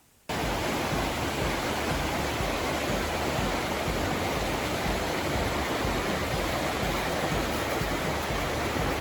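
Small turbulent river swollen with spring snowmelt, its water rushing steadily over rapids; the rush cuts in suddenly just after the start.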